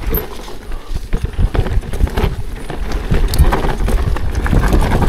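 ProPain Ekano 2 CF mountain bike riding over a rocky trail: fast, irregular knocking and clattering as the tyres hit stones and the chain and frame rattle, over a steady low rumble.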